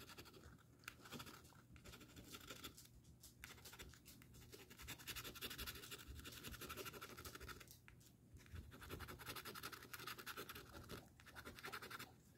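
Coins scraping the latex coating off a paper scratch-off lottery ticket: faint, quick rasping strokes in runs, broken by a few brief pauses.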